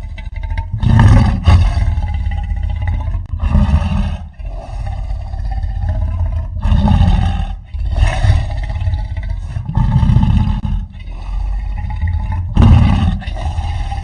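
Custom-designed Vastatosaurus rex creature roar sound effect: a run of low, heavy roars and growls with a held mid-pitched tone, swelling into loud bursts several times, the loudest about a second in and near the end.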